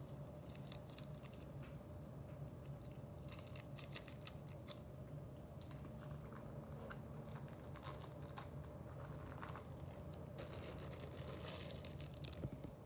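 Faint clicks and crinkling of packaging as small diecast cars are handled, with a denser rustle about ten seconds in, over a steady low hum.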